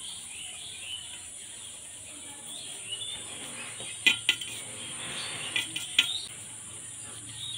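Stainless steel plates of mango pulp being jiggled and pressed down on a mat-covered floor to settle the pulp flat, with a few sharp metallic knocks around four and six seconds in. Insects chirp steadily in the background.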